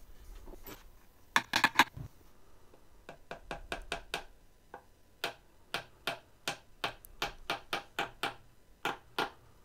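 A hammer tapping on wood: a quick, loud cluster of four blows, then a long run of about twenty lighter, fairly even taps, roughly three a second.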